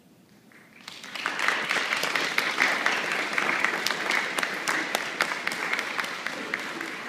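Audience clapping and applauding; the applause breaks out about a second in, peaks soon after and slowly tapers off.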